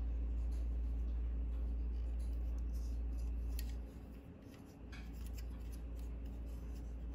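Small clicks and rubbing of a plastic Transformers figure's joints and panels as its parts are moved by hand, over a steady low hum that drops about four seconds in.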